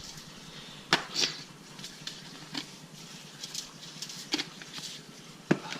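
Seasoning shaken from a container onto a catfish fillet: a few sharp taps mixed with short hissy shakes at irregular intervals, the loudest tap about a second in and another near the end.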